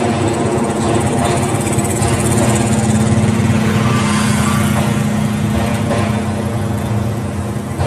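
A small engine running steadily at idle: a constant hum with many overtones that does not change as the train moves off. A higher hiss swells and fades in the middle.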